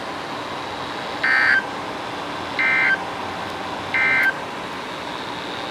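NOAA Weather Radio SAME end-of-message code: three short, identical digital data bursts, evenly spaced over steady radio hiss, marking the end of the severe thunderstorm warning broadcast.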